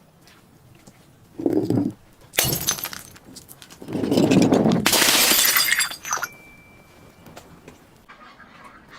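Glass bottles being broken and crushed: a short dull hit about a second and a half in, a sharp shatter near two and a half seconds, then about two seconds of continuous cracking and crunching glass.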